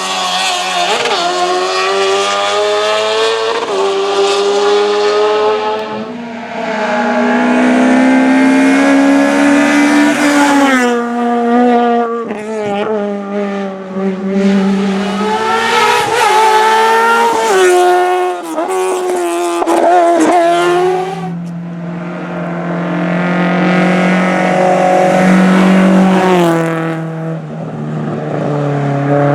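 Hillclimb race car engine revving hard at high load. Its note climbs, drops and climbs again several times as the car shifts gears and brakes through the stage.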